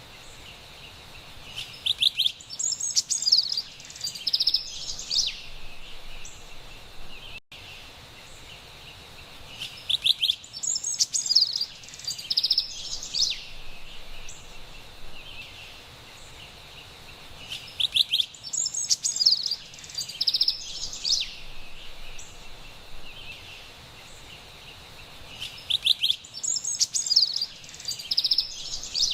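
Carolina wren singing: a bright, rapid song phrase of about three seconds that comes back four times, roughly every eight seconds, over a steady hiss of forest background.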